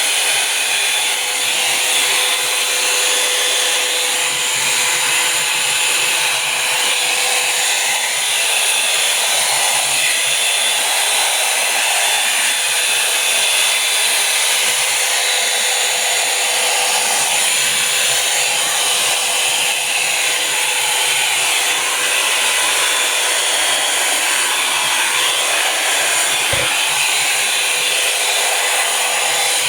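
Revlon Volumizer Plus hot-air brush hair dryer running steadily, its fan and blowing air making an even rush with a faint hum, with one brief low bump near the end.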